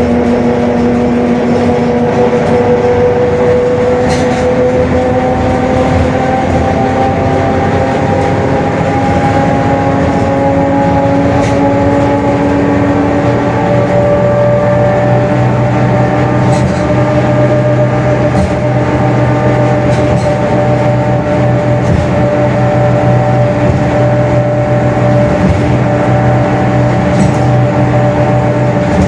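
Mercedes-Benz OF-1721 bus driving, its diesel engine running steadily under a droning gear whine that climbs slowly in pitch as road speed builds. The whine comes from the rear differential, which the title says is growling ('roncando'), a sign of a worn differential.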